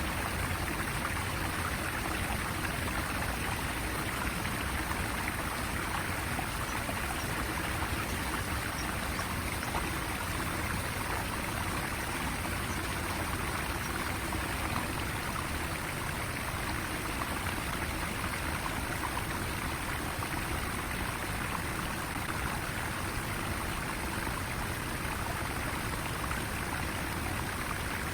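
Flowing stream water rushing steadily, with no change throughout.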